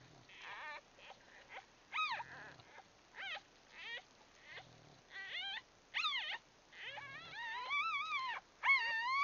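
Newborn bulldog puppies whimpering and squeaking in short, high cries that rise and fall in pitch. The cries come sparsely at first, then grow longer and closer together from about seven seconds in.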